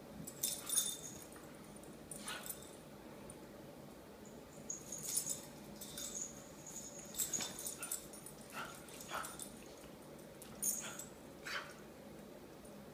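A dog whimpering and giving short yips while play-fighting with a cat, amid brief scuffling sounds, in a string of short separate bursts.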